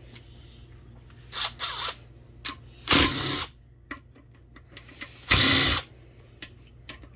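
Cordless power driver with a 10 mm socket spinning out valve body bolts in four short bursts of about half a second each, with small clicks of bolts and the tool being handled in between.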